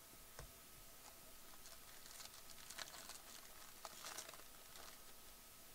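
Foil wrapper of a baseball card pack being torn open and crinkled, faintly, mostly in the middle of the stretch, with a single small click near the start.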